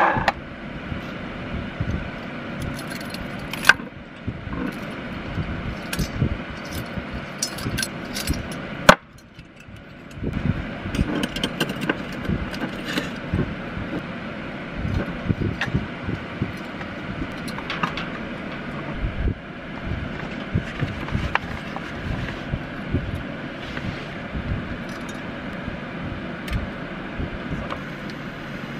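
Stainless steel camping bowls and a gas-canister camp stove being handled and assembled, with a wire grill grate set on top: scattered clicks, clinks and light metal knocks over a steady background hum.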